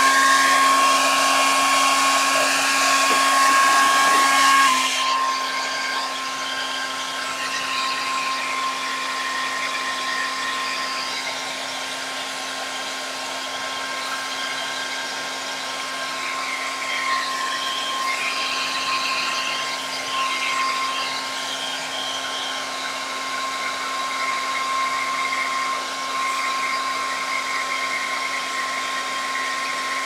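Hair dryer running steadily, blowing on wet acrylic paint to dry it: a steady motor whine over rushing air. The rushing air is loudest at first and drops to a lower, even level about five seconds in.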